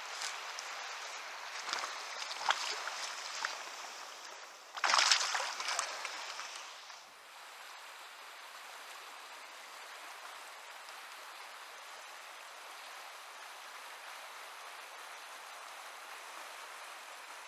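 Water splashing irregularly in a shallow river, loudest in a burst about five seconds in, then the steady rush of the river current.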